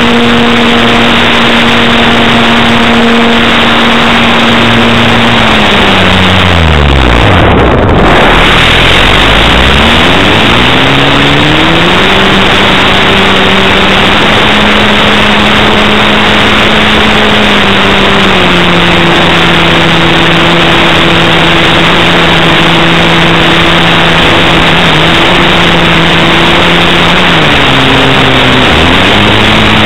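Electric motor and propeller of an RC Edge 540 aerobatic plane heard from an onboard camera, its whine sinking to almost nothing about a quarter of the way in as the throttle comes off, then climbing back and holding steady, with a brief dip near the end. Loud rushing wind on the microphone throughout.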